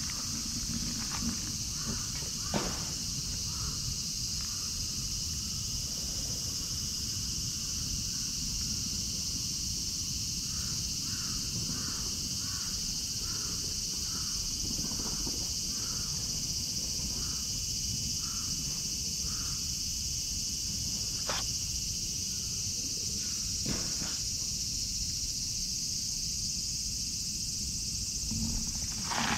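Outdoor ambience: a steady high-pitched insect drone, with a bird giving a run of short repeated calls through the middle. There are a few faint clicks and a low steady rumble.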